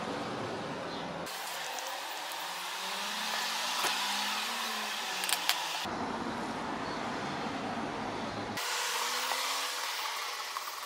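Steady rushing background noise that changes abruptly several times, with a few sharp clicks of the plastic casing and parts being handled as the Sony SRS-XB2 speaker is taken apart.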